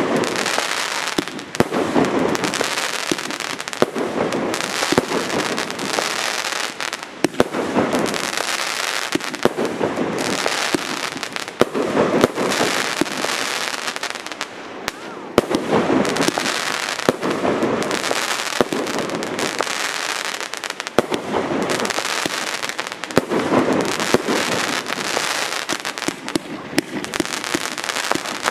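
Professional category 4 fireworks display firing a rapid, continuous barrage of shell bursts with dense crackling, heavier booms coming about every two seconds.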